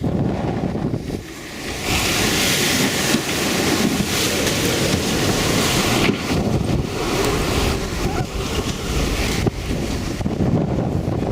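Storm wind buffeting the microphone over the rush of breaking seas around a sailboat in a 60-knot cyclonic storm. A louder, hissing rush builds about two seconds in and eases off near the end.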